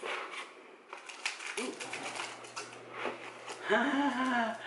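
Crinkling and clicking of a plastic-wrapped item and paper being handled, in short irregular bursts. A brief vocal sound from a person comes near the end.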